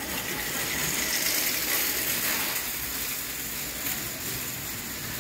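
Steady background hiss of a large indoor hall, even and unbroken.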